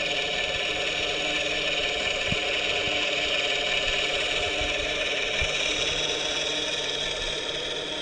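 Quadcopter in flight whose onboard MrRCSound V4.1 sound system plays a simulated helicopter engine sound through transducers mounted on a foam resonator, mixed with the whir of the quad's motors and propellers. The sound holds steady, with a few faint low knocks midway.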